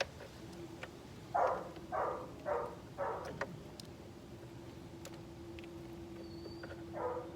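A dog barking: four quick barks in a row, then one more near the end, over a faint steady hum.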